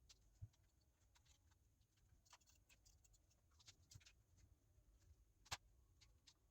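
Near silence with faint, scattered clicks and ticks, and one sharper click about five and a half seconds in.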